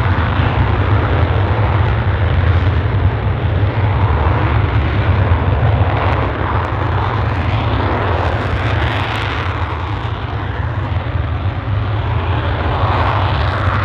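Dassault Mirage 2000 two-seat jet's SNECMA M53 engine running in afterburner at the start of its takeoff roll: a steady, loud jet rumble, heavy in the lows, that eases slightly midway and swells again near the end.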